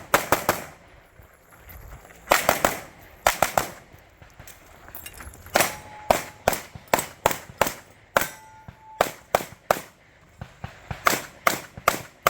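Rapid gunfire in pairs and fast strings of shots: pairs near the start, around two and around three seconds in, a quick run of shots from about five and a half to ten seconds, and another burst near the end. A short ringing tone follows shots at about five and a half and eight seconds.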